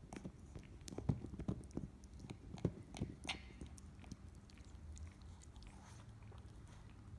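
A Maltese dog gnawing on a bone-shaped dental chew toy: irregular clicks and crunches of teeth on the toy, busiest in the first three or four seconds, then thinning out.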